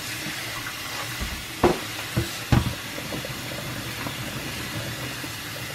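Kitchen faucet running, the stream splashing into a plastic tub of blueberries in water in the sink, with a few short knocks a little under halfway in.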